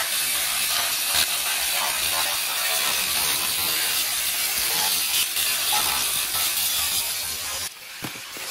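Ryobi angle grinder's disc cutting into a chrome-plated steel bumper, a steady harsh grinding that drops away suddenly near the end.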